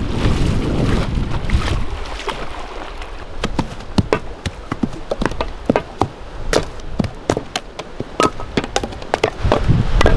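Choppy lake water lapping and slapping against rocks along the shore, making many sharp splashes and plops, some with a short ringing note. Wind rumbles on the microphone for the first couple of seconds.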